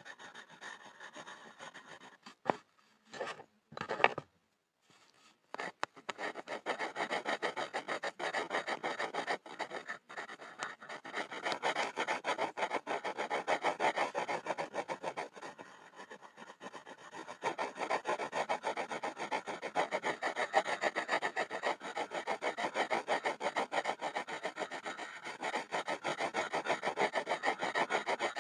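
Pencil scribbling on a wooden board: faint scratching, a few separate loud strokes, a short pause, then rapid, even scribbling strokes.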